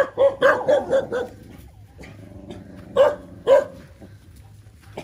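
Dogs barking in play: a quick run of about six short barks at the start, then two louder single barks about three seconds in.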